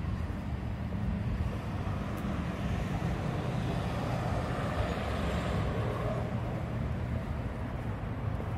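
Street traffic: a motor vehicle passes, its engine and tyre noise swelling in the middle and then fading, over a steady low rumble.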